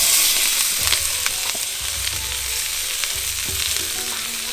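Chopped bell peppers, scallions and onion sizzling hard in hot oil in a wok just after being tipped in, the sizzle easing a little as they settle. A few light clicks in the first couple of seconds.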